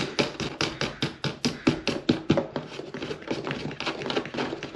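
Quick, even clicking, about five clicks a second, as a panel-mount USB-C socket is fastened into a plastic case lid. The clicks grow fainter a little past halfway.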